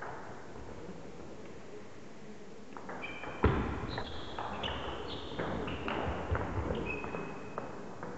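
Table tennis doubles rally: the celluloid ball clicking off rubber-faced paddles and the table in quick succession, with sneakers squeaking on the wooden hall floor. The rally starts about three seconds in with a loud thump and ends shortly before the close.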